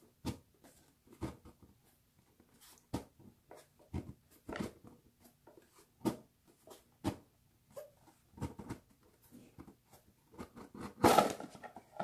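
Hands handling kihno album packaging and cards: light taps and clicks about once a second, then a louder rustle near the end.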